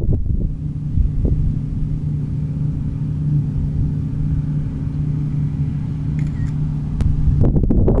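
New Holland CX8070 combine harvester running steadily while cutting winter barley, a constant engine drone with a low hum. Wind buffets the microphone near the end.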